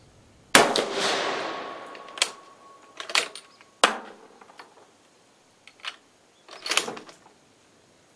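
A single rifle shot from an 8mm-converted Carcano M38 firing a reduced cast-bullet handload, its report echoing away for over a second. It is followed by several sharp metallic clicks and clacks of the bolt being worked to eject the case and chamber the next round.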